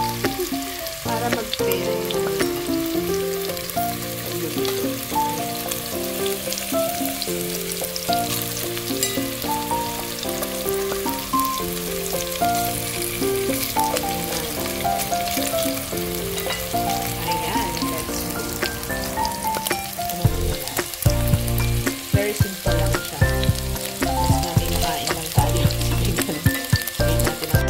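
Raw meatballs sizzling and crackling in a little olive oil in a nonstick frying pan. Background music with a melody plays over it, and a bass beat comes in about twenty seconds in.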